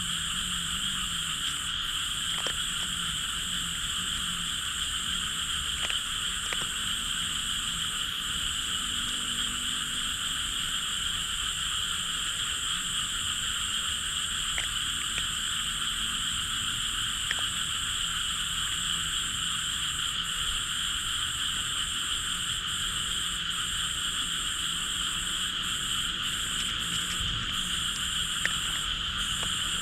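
Dense night chorus of frogs calling without pause from the fields, a steady wall of high calling with no single voice standing out.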